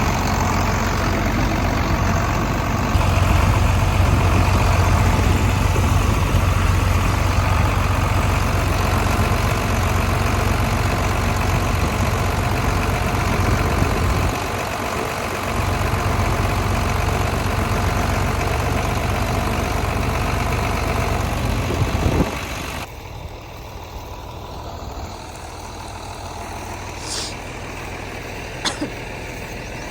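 Farm tractor engine running steadily with a deep hum. About three-quarters of the way in it suddenly becomes much quieter.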